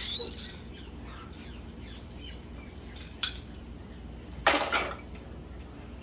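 Young cockatiels calling: a rising whistle in the first second, then two short, harsh squawks about three and four and a half seconds in, the second the loudest.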